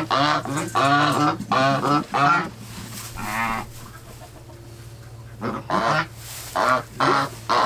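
Geese honking in quick runs of calls: a dense burst over the first couple of seconds and another from about five and a half seconds in, with quieter calling between.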